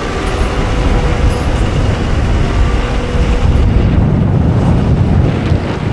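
Heavy farm machinery running: a steady, loud diesel engine rumble with a low, rough drone.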